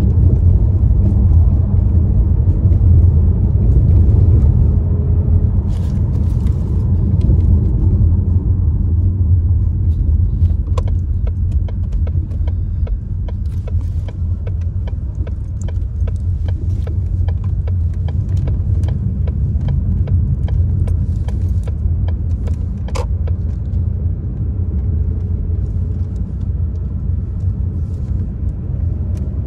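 Steady low engine and road rumble inside a moving car's cabin. From about eleven seconds in there is a run of light, fairly evenly spaced clicks lasting roughly twelve seconds.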